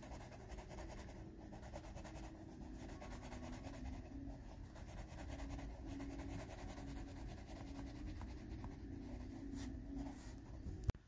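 Coloured pencil scratching across paper in quick, repeated shading strokes. A brief click comes near the end.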